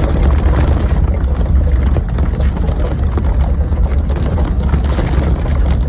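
Steady low rumble of a car being driven, its engine and road noise heard from inside the vehicle.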